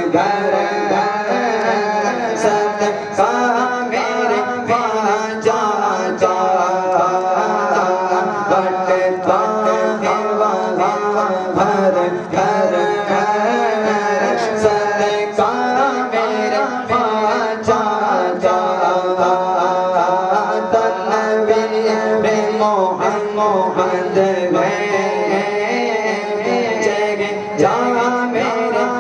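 A man reciting a naat, a devotional song, in a solo voice with long melismatic phrases, sung into a handheld microphone. A steady low tone holds underneath the voice.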